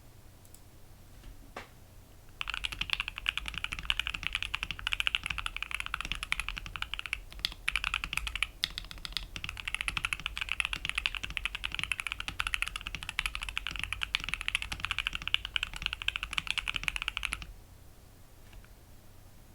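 Fast, continuous typing on a home-built popsicle-stick keyboard. One lone key click comes just before the typing starts, about two seconds in. There is a short break about a third of the way through, and the typing stops a couple of seconds before the end.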